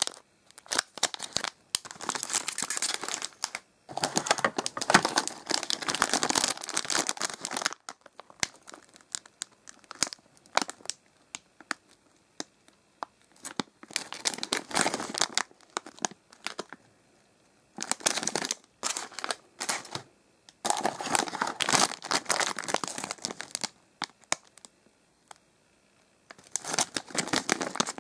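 Plastic and foil snack wrappers being handled and crinkled, rustling in bursts of a few seconds with quiet pauses between.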